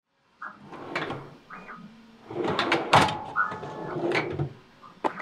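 Hands rummaging through a tool chest drawer full of metal parts, with clatters and knocks that are loudest about three seconds in. A brief ringing tone follows just after.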